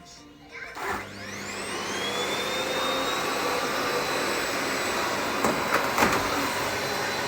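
A vacuum cleaner is switched on about a second in, its motor whine rising as it spins up, then running steadily. Two brief knocks come near the end.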